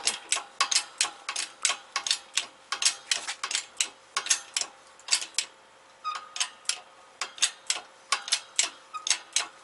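Hand-pumped bottle jack on a shop hydraulic press, its handle clicking rapidly at about four clicks a second, with a brief pause about five seconds in. The press is driving a wheel bearing race down into a rear brake rotor.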